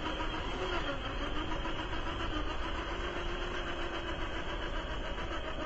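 Traxxas TRX-4 1/10 scale RC crawler's electric motor and gear train whining as it crawls slowly through a shallow creek. The pitch wavers with throttle, dipping about a second in and then climbing back, over the steady wash of the flowing creek.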